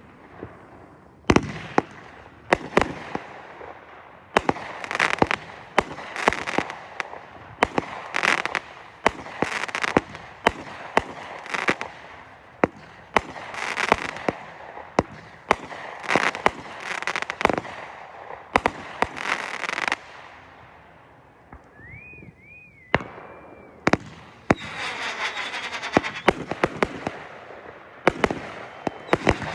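Consumer fireworks going off in a steady run of sharp bangs, each trailing off into crackle. A brief warbling whistle sounds a little past twenty seconds, and a dense stretch of crackling follows near the end.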